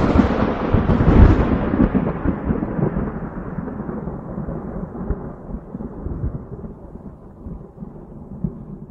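A thunderclap that rumbles and rolls, loudest about a second in, then slowly fades away over several seconds.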